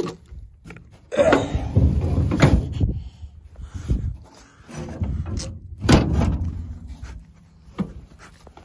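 Thumps and clunks from the rusted steel bed and tailgate of a 1971 Ford F100 pickup being handled, several sharp knocks among stretches of rumbling handling noise.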